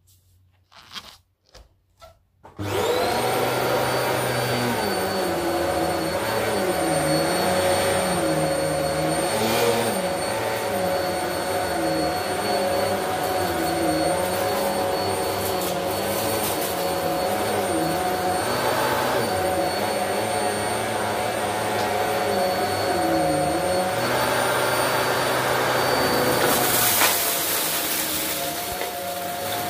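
Upright vacuum cleaner with a motorised brushroll, switched on about two and a half seconds in after a few faint clicks, then running steadily with a high whine over its motor hum. Its hiss grows brighter and its tone shifts near the end as it is moved across the carpet.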